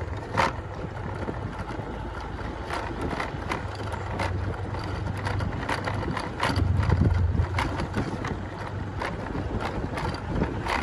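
Wind rumbling and buffeting the microphone, swelling about two-thirds of the way through, with irregular light clicks and knocks about one or two a second.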